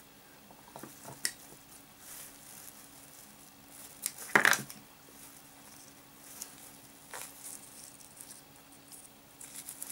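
Quiet handling of a small PVA bag of groundbait and PVA string being wound around its neck, with a few small clicks and rustles. About four seconds in, one short, louder snip as the string is cut with scissors. A faint steady hum runs underneath.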